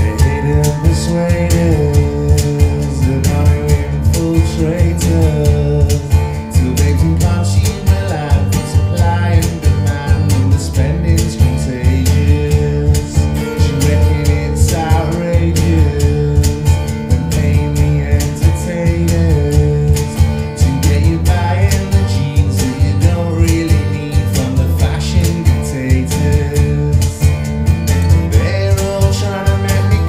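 A song played back through Sonus Faber Il Cremonese floor-standing loudspeakers: a singing voice and guitar over a steady beat.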